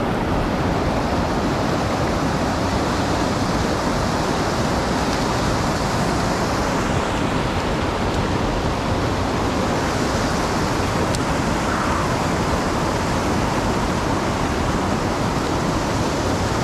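Steady rush of flowing creek water, an even hiss that holds level throughout.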